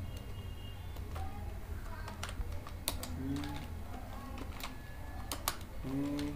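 Keystrokes on a computer keyboard: about half a dozen separate, spaced-out key clicks beginning about a second in, over a steady low hum.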